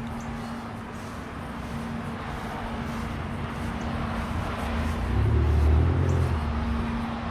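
Road traffic going by, with a steady low hum underneath. One vehicle passes closer about five to six seconds in, its low rumble swelling and then fading.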